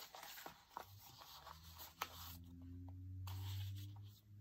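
Paper journal pages being turned and handled: light rustles and small taps of paper and card. A low steady hum comes in about a second in and grows louder toward the end.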